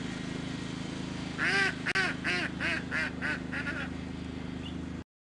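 A bird calling about nine times in quick succession, each call rising and falling in pitch and the calls growing fainter, over a steady low hum. The sound cuts off near the end.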